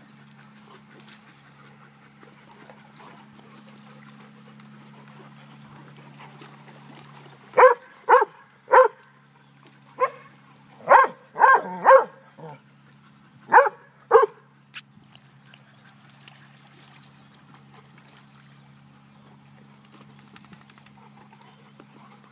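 Dogs at play: one dog barks about ten times in two quick runs around the middle, sharp single barks while the dogs wrestle. Before and after, there is only low background noise.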